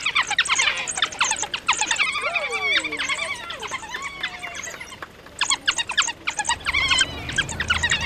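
A pack of African wild dogs giving rapid, high-pitched twittering squeals as they tug at a carcass. A few lower, falling whines come about two to three seconds in, and the calls thin out briefly just past the middle.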